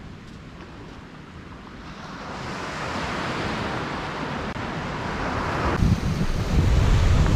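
Small surf breaking and washing up a sandy beach, a hissing wash that swells from about two seconds in. About three-quarters of the way through it gives way suddenly to loud, low wind buffeting on the microphone.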